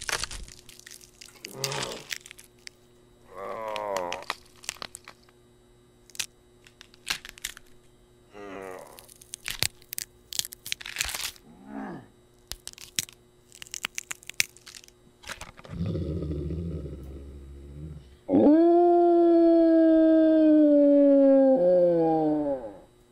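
Werewolf transformation sound effects: sharp cracking and snapping noises mixed with short, wavering, strained groans, then a low growl, and finally one long, loud, wolf-like howl that slowly falls in pitch and takes up the last four seconds or so.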